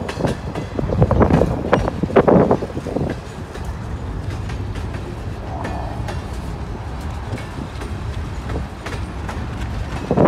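Freight cars rolling past on the rails: a steady rumble of wheels on track, with loud bursts of wheel clatter about one to three seconds in and again at the end as the car trucks pass.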